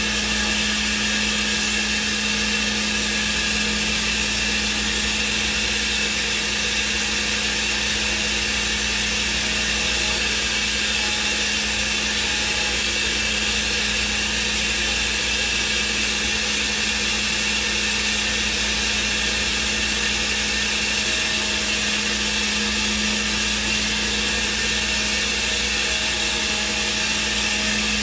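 Thermwood CNC router running, its spindle head moving about a part, giving a steady, even machine noise with a constant low hum and a hiss over it.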